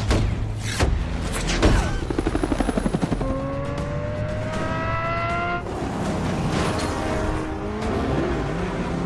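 Action-film sound mix: sharp blasts in the first two seconds and a fast rattle until about three seconds in. Then a sports car's engine revs up steadily as it accelerates, with music underneath.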